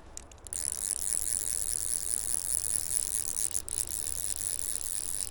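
Fly reel's click-and-pawl drag ratcheting in a fast, steady rattle while a hooked trout is played, with a brief break near the middle.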